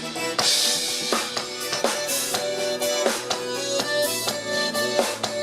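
Live sertanejo band playing an instrumental break without vocals: a drum kit keeps a steady beat of kick and snare under sustained chords.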